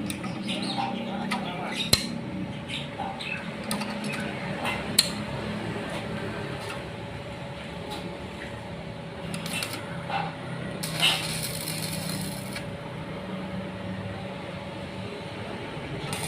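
Scattered light metallic clinks and taps of tools and parts being handled, over a faint steady hum, with a brief rushing noise about eleven seconds in.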